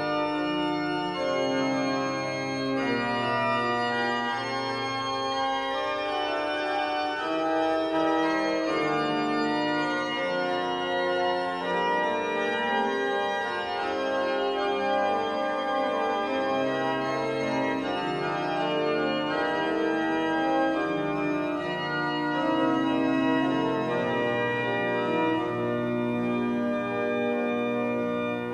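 Pipe organ playing a Renaissance hymn setting: several voices of sustained notes moving together in counterpoint, at an even loudness.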